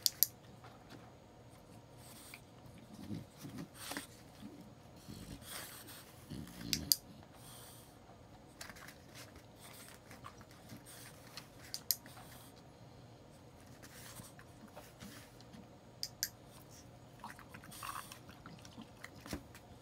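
A dog-training clicker clicks sharply four times, several seconds apart, marking the French bulldog's nose touches. Soft chewing and shuffling from the dog between the clicks.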